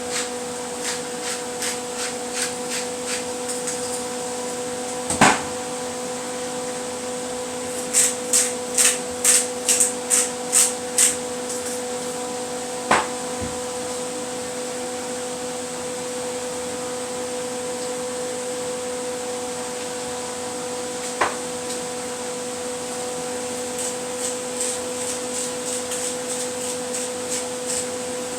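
Spice shaker being shaken over the turkey in short runs of quick, sharp rattling taps, with a few single knocks of a container or utensil being set down, over a steady hum.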